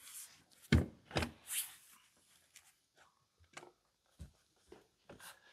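A heavy car front seat being shifted inside the car, knocking twice against the body a little under a second in. Then comes a brief rustle, and a few light clicks and taps follow as it is worked loose.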